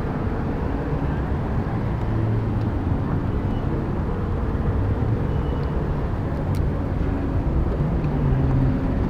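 Small CAG engine of a motorized mountain bike running steadily under way, its low note wavering slightly, over a steady rush of noise, on a freshly fitted two-shoe racing clutch.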